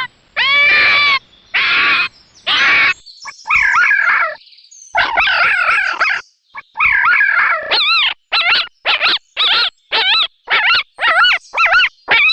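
A string of high-pitched animal cries: several arched calls of up to a second each, then from about eight seconds in a quick run of short, wavering calls, about two a second.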